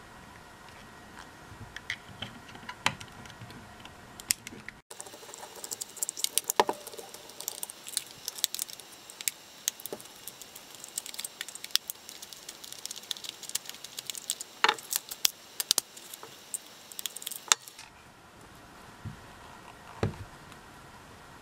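Small metal T10 Torx wrench clicking and scraping in the screw heads of a plastic Makita 14.4V battery case as the case screws are turned out: a run of quick small clicks and rattles, densest through the middle. A few soft knocks of the battery being handled near the end.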